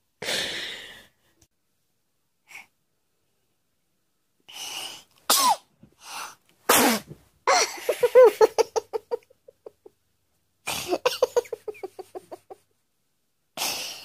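A woman's forced sneezes: a breathy one near the start, then a quick run of sharp sneezes about five to seven seconds in. These are followed by stretches of rapid, pulsing giggles, and another sneeze comes right at the end.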